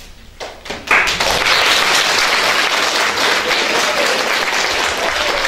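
Audience applauding, starting suddenly about a second in and holding steady.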